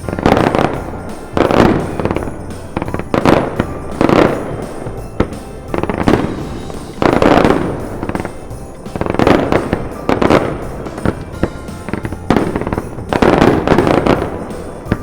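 Fireworks going off in quick succession: a loud bang about every one to two seconds, each fading away before the next.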